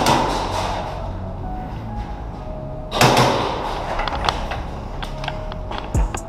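Sounds of indoor airsoft play: a loud rushing burst that fades over about a second, a second one about three seconds in, then scattered sharp clicks and taps, as of airsoft shots and BB impacts.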